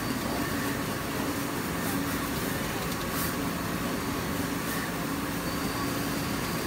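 Steady hum and whir of a production line of Panasonic NPM surface-mount pick-and-place machines running, with a few faint ticks.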